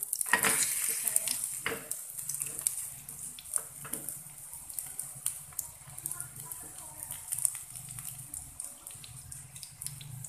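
Sausage-and-egg martabak sizzling in a small nonstick frying pan. It is flipped and lands with a louder sizzle in the first second, then a spatula scrapes and presses it against the pan with scattered clicks.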